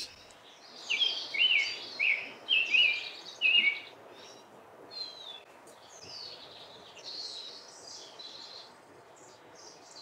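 Male summer tanager singing: a run of rich, slightly burry whistled phrases, robin-like, over about three seconds. Fainter, higher bird notes follow.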